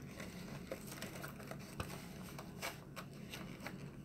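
Scattered light clicks and soft rustling as small packaged cosmetic items are shifted around by hand inside an advent calendar compartment.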